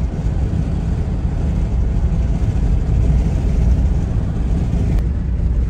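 Steady low rumble of a car being driven on the highway, heard from inside the cabin: engine and tyre road noise at cruising speed.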